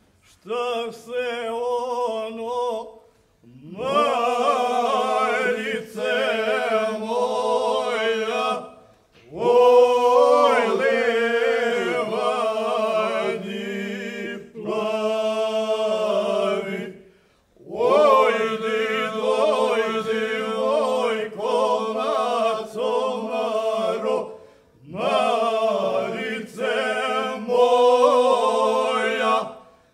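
Men's group singing a traditional Banija folk song unaccompanied (na suvo): the lead voices bend over a steady, low held bass part. The song comes in phrases of a few seconds, each broken off by a short pause for breath.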